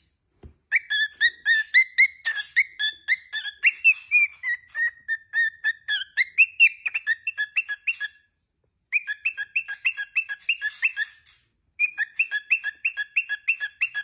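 Cockatiel whistling a fast string of short, chirpy notes, about three a second, that rise and fall in pitch. It sings in three runs, with brief pauses about two-thirds of the way in and again shortly after.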